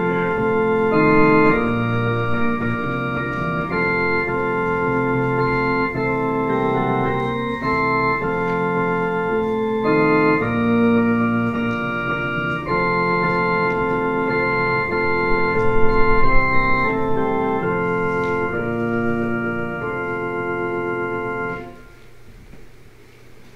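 Organ playing a slow prelude of held chords that change step by step; the final chord is released near the end.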